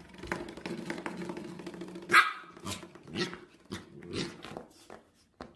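Corgi puppy growling, then giving a series of short, sharp barks at a twanging spring door stopper, the loudest about two seconds in.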